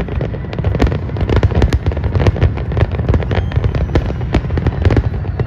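An aerial fireworks display: many shells bursting in quick succession, a dense run of sharp cracks and bangs over a continuous deep rumble of booms.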